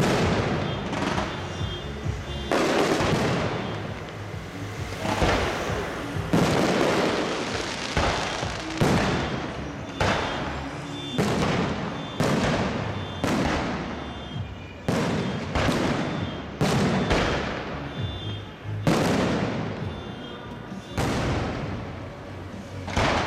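Aerial firework shells bursting in quick succession, about sixteen bangs, each trailing off over roughly a second, with music underneath.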